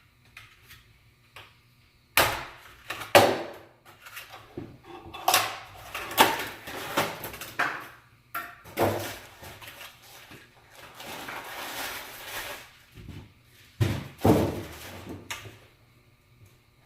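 Cardboard and foam packaging being handled while a miter saw is unpacked: a string of knocks, scrapes and rustles, with a longer stretch of steady rustling or sliding about two-thirds of the way through.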